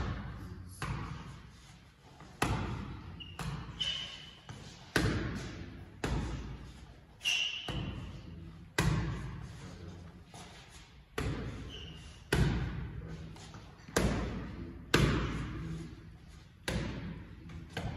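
Boxing gloves punching focus mitts: sharp, echoing slaps about every second or so. A few short high squeaks come in between.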